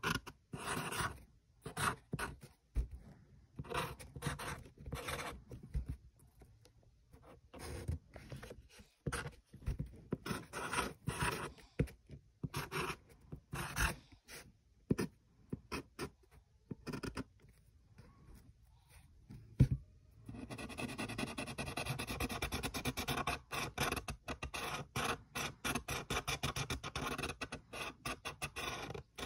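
Felt-tip marker scratching across paper in short, irregular strokes as words and lines are drawn. About two-thirds of the way through it turns into fast, continuous scribbling as an area is filled in black.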